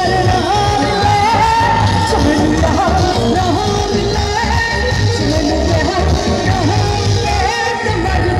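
Live band music with a singer, played loud over a sound system, with a steady pulsing bass beat under the vocal line.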